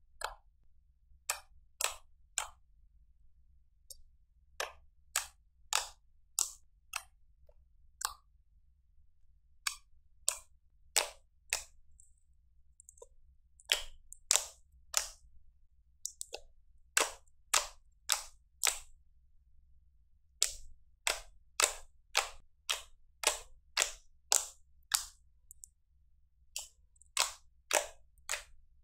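Thick glittery slime being poked and pressed with the fingers, giving a run of sharp, crisp pops as air pockets burst, about two a second with short pauses between runs.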